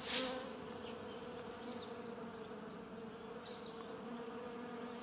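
A bee buzzing in a steady, even hum. A short hissing whoosh at the very start is the loudest sound.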